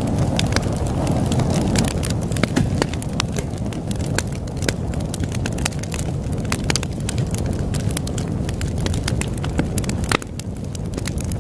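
Wood fire crackling, with frequent sharp pops and snaps at irregular intervals, over a steady low rush of ocean waves.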